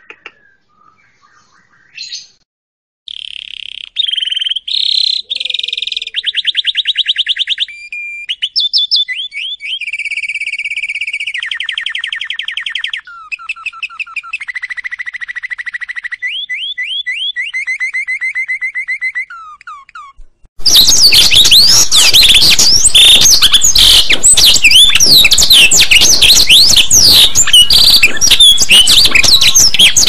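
Cucak ijo (green leafbird) singing a varied run of trills, rapid repeated notes and short whistled slurs. About 20 seconds in it breaks into a loud, dense torrent of fast chattering notes that runs on to the end.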